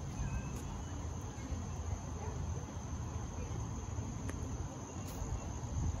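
Steady high-pitched drone of insects, unbroken throughout, over a low rumble, with a few faint short chirps.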